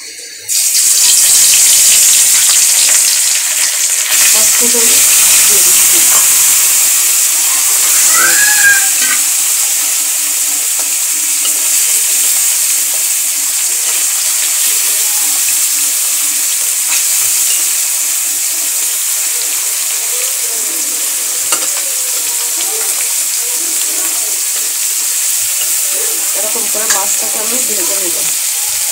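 Small chapila fish frying in hot oil in a kadai. A loud sizzle starts suddenly about half a second in as the fish go into the oil, then carries on steadily while a metal spatula turns them.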